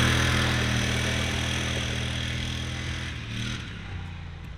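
Polaris Sportsman ATV engine running at steady revs as it drives away over gravel, growing steadily fainter as it recedes. The engine note shifts briefly about three and a half seconds in.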